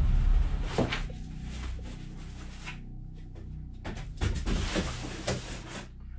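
Long cardboard gun box being opened: a knock at the start as the lid is lifted, then cardboard scraping and rustling as it comes off. About four seconds in, more rustling and light clicks as the packaging inside is handled.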